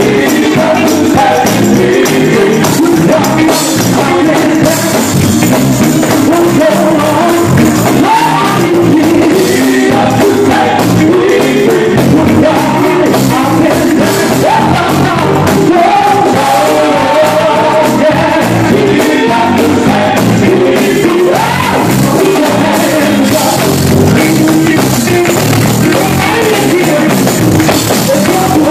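A live gospel vocal group singing into microphones, backed by electric guitar and a drum kit and amplified through a PA in a church hall. The music is loud and steady, the lead voices wavering in pitch over a driving band rhythm.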